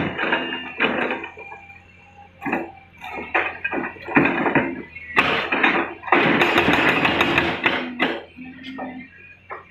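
Hydraulic breaker on a Volvo EC330BLC excavator hammering rock in bursts of rapid blows with short pauses between, the longest burst starting about six seconds in and lasting nearly two seconds. The excavator's diesel engine hums steadily underneath.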